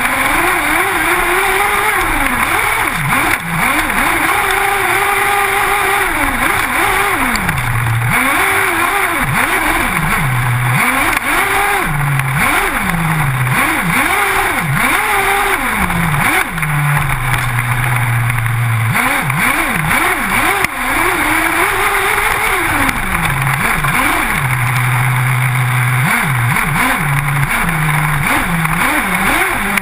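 Two-stroke engine of a large-scale RC off-road car, revved up and down over and over as the throttle is worked, with a few short steadier low stretches. A constant hiss of wind and gravel runs underneath.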